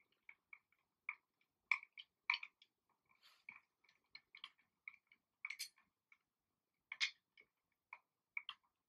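Hand screwdriver driving a screw into a baby rocker's frame: faint, irregular short clicks and creaks, about two to three a second, as the screw turns and tightens.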